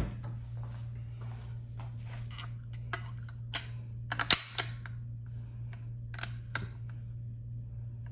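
Bolt of a bolt-action precision rifle worked by hand while chambering an unloaded dummy round: a string of separate metallic clicks and clacks, the loudest cluster about four seconds in, over a steady low hum.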